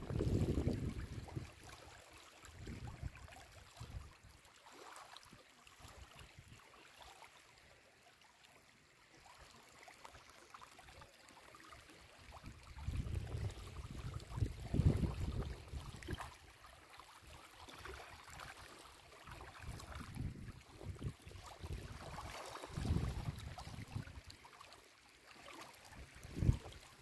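Wind buffeting the phone's microphone in low rumbling gusts, strongest at the start, in the middle and again later, over small lake waves lapping gently on a stony shore.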